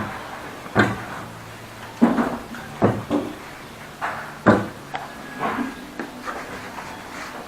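Solid wooden parts of a lathe stand being handled, giving about five separate knocks and clunks of wood against wood.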